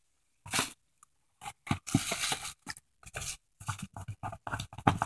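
Paper-and-plastic snack packaging rustling and crinkling in irregular bursts as it is handled, with a flurry of short crackles near the end.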